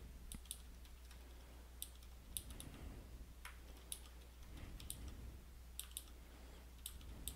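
Faint computer keyboard keystrokes: irregular, quick clicks as code is typed.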